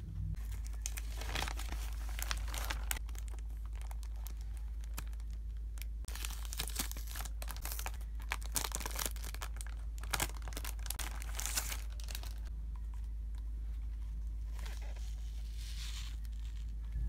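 Kraft paper wrapping being torn open and a binder's clear plastic wrap crinkling as it is handled and peeled off. Dense crackling runs from about half a second in until roughly three quarters of the way through, then thins to a few scattered crinkles near the end.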